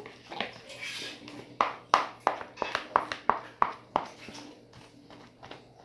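Thick slime being stirred with a spoon in a bowl: a quick run of sharp taps and sticky squelches from about a second and a half in, easing off after about four seconds.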